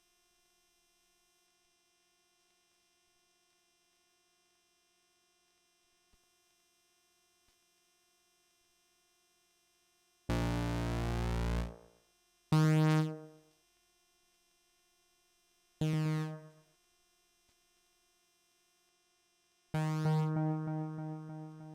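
Behringer Phara-O Mini analogue synthesizer played dry, with no effects. About ten seconds of near silence with a faint hum come first, then four separate notes: the first held for about a second and a half, the next two short and fading quickly, and the last starting about two seconds before the end and slowly decaying.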